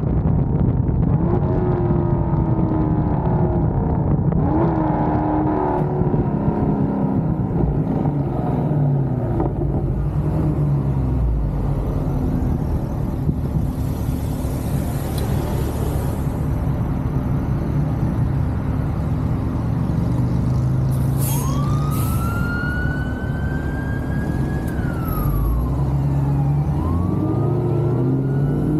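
Chrysler 300's 6.4-litre Hemi V8, fitted with long-tube headers and a Corsa exhaust, running while the car is driven, its revs rising and falling in the first few seconds. Late on, a siren-like wail rises and falls over the engine, and a second rise begins near the end.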